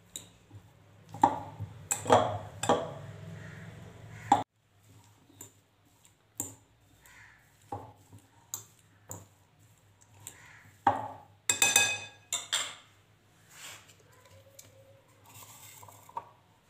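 Steel fork mashing boiled potatoes in a ridged glass bowl: irregular clinks and scrapes of the fork against the glass, some ringing briefly. The loudest clinks come in a cluster about a second in and again about two-thirds of the way through.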